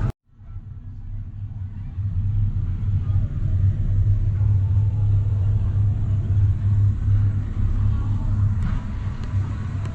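A steady low rumble that builds up over the first two seconds after a sudden cut, then holds.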